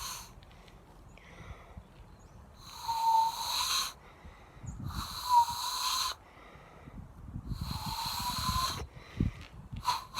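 Loon call blown into cupped hands: three breathy, hooting notes about a second each, each on a steady pitch that slides slightly upward.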